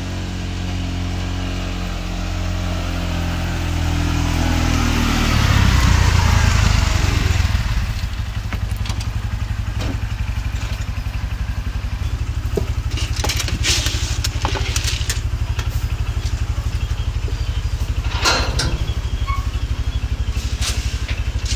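Side-by-side utility vehicle's engine running as it drives up close, louder until about six seconds in, then settling to a steady, evenly pulsing idle. A few sharp knocks over the idle, the loudest near the end.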